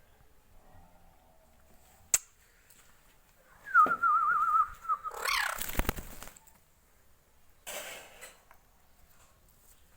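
Indian ringneck parrot giving a warbling whistle about a second long near the middle, quavering rapidly on one pitch and then sweeping up. It comes with a noisy burst and thumps right after it, a single sharp click before it and a short rustle later.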